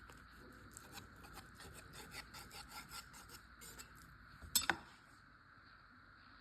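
Food-preparation handling sounds: light scraping and rubbing with small clicks, then one sharp clink about four and a half seconds in.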